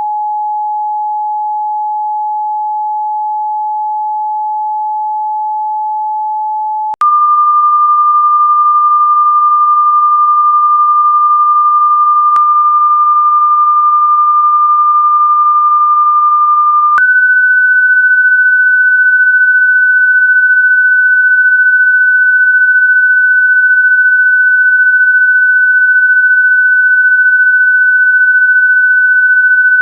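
Pure sine-wave hearing-test tone, held steady and stepping up in pitch twice: once about seven seconds in, when it also gets louder, and again about ten seconds later.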